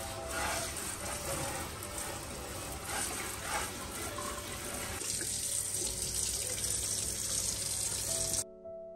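Hot water from a pull-out kitchen tap on its spray setting splashing over a stainless steel sink and drainer as it is rinsed; the water cuts off suddenly near the end.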